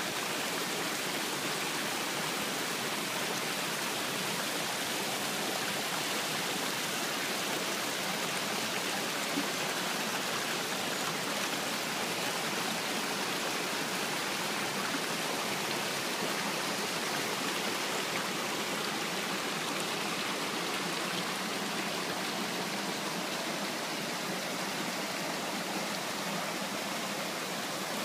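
Rocky mountain stream rushing steadily over small cascades between boulders.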